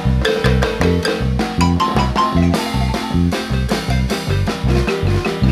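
Guatemalan marimba ensemble playing an upbeat dance tune. Rapid struck marimba notes ring over a steady, pulsing bass and drum beat.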